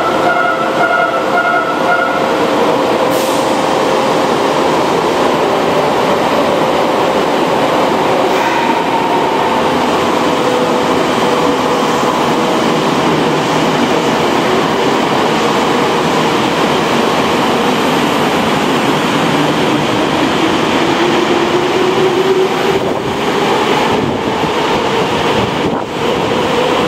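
Sakuradori Line 6000 series subway train moving through an underground station: a steady rumble of wheels and running gear with a motor whine, which rises in pitch over the last several seconds.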